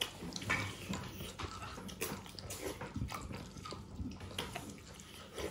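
Scattered soft clicks and wet squelching sounds of eating: hands working rice and curry on plates, with the odd clink of dishes.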